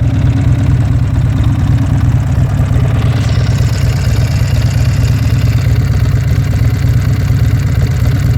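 Buell X1 Lightning's air-cooled 1203 cc V-twin idling steadily. A higher hiss joins in about three seconds in.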